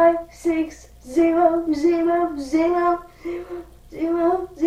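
A child singing a simple tune in a string of short held notes, mostly on one pitch with small steps up and down.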